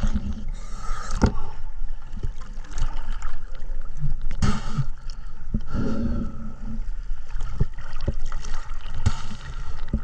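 Scuba diver breathing through a regulator underwater: exhaled bubbles gurgle in bursts every few seconds, with scattered sharp clicks between them.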